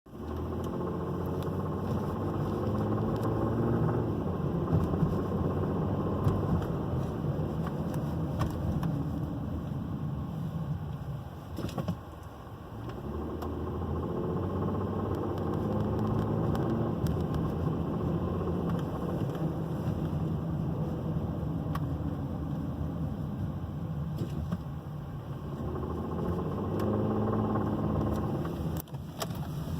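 2009 Volvo XC70's 3.2-litre inline-six engine accelerating about three times, each time rising in pitch, with a loud knocking under load. The knock comes only when the engine is loaded, and a new water pump, idler and tensioner pulleys and serpentine belt have not cured it.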